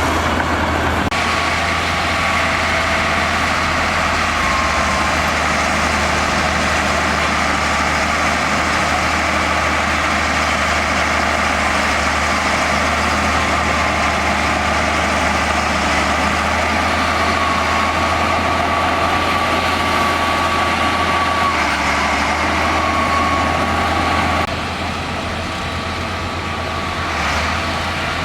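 Heavy bulldozer diesel engine running steadily under work, with a steady high whine over the engine note. It drops a little in level about 24 seconds in.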